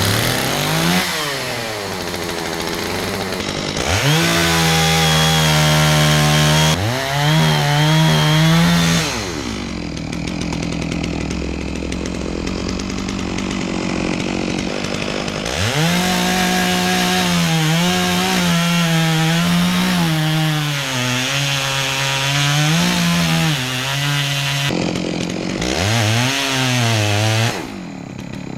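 Gasoline chainsaw revving to full throttle and cutting into a pine trunk, its pitch wavering and sagging as the chain bites; it eases off about ten seconds in, revs up again near the middle, and drops back briefly before a last burst near the end.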